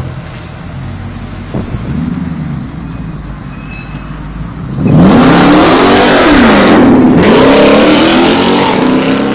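Jeep Grand Cherokee SRT8's V8 rumbling as it moves off slowly, then about five seconds in going to full throttle: a loud, sudden acceleration, the engine note rising, dipping once and rising again as the SUV speeds away.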